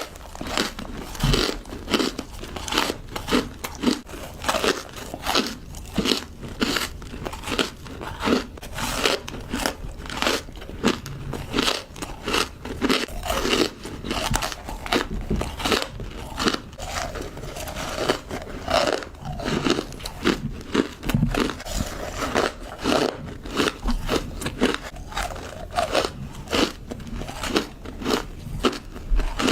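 Close-up biting and chewing of small pieces of ice: a quick, irregular run of sharp crunches as the ice is cracked between the teeth and ground down.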